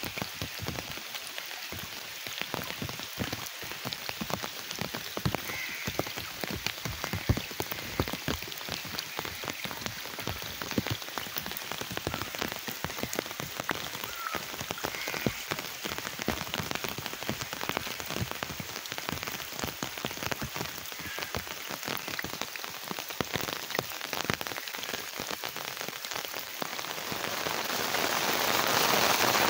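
Rain falling on wet ground and puddles, an even hiss dotted with many sharp close drop hits. Near the end the rain grows louder and denser.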